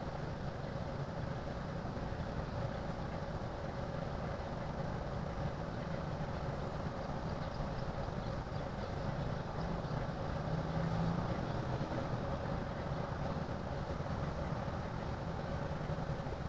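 Boeing 787-8's Rolls-Royce Trent 1000 turbofan engines rumbling steadily as the airliner passes over, with a faint steady whine above the rumble. The sound swells slightly about ten seconds in.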